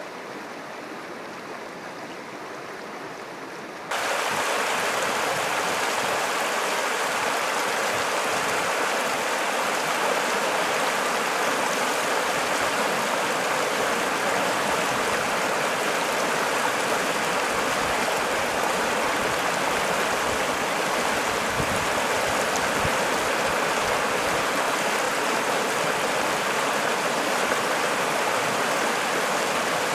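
Steady rush of river water, even and unbroken; it jumps suddenly much louder about four seconds in and holds there.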